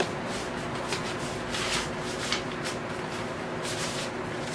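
Paper inner sleeve of a vinyl record rustling as it is handled, with a few short swishes of paper sliding against the disc.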